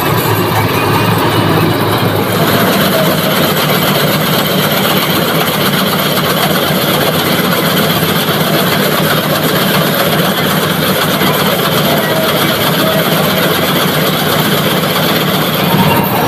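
Combine harvester running steadily as it cuts and threshes paddy: engine and threshing machinery.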